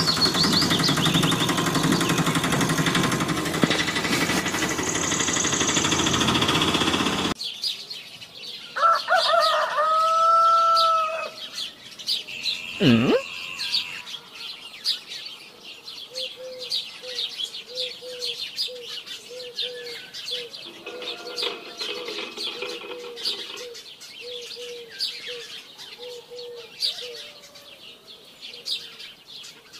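Music for about the first seven seconds, cutting off abruptly; then birds chirping throughout, with a couple of longer calls and later a long run of short repeated calls.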